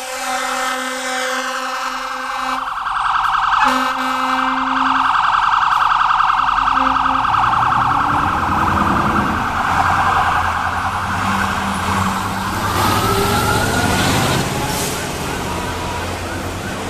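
Pierce Lance fire engine responding with siren and horn: steady horn blasts that break off in the first few seconds, then a fast-warbling siren, loudest in the middle as the truck passes, with the siren's pitch rising and falling and the engine's low rumble heard as it goes by.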